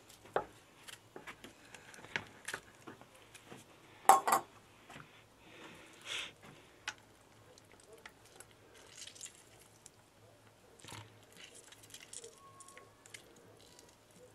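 Small handling sounds of hands and a knife working over a plastic basin of water: scattered light clicks and taps, with one louder clatter about four seconds in.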